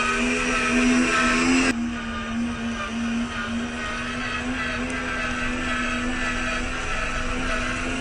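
WPL C94 UAZ-469 RC car's electric motor and gear train whining steadily while driving offroad. The sound is louder at first and drops suddenly a little under two seconds in.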